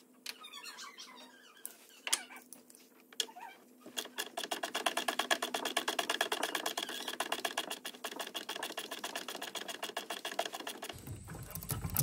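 Socket ratchet clicking rapidly and evenly for several seconds while a fastener under the bonnet is turned, after a few scattered knocks of tools and parts. A low rumble of handling comes in near the end.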